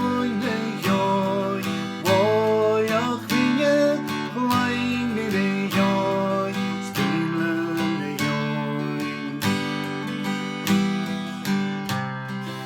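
Acoustic guitar strummed in a steady rhythm, with a wavering melody line over the chords, in a Gaelic folk song.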